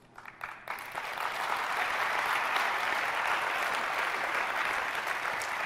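Audience applauding: a few scattered claps that swell within about a second into steady applause.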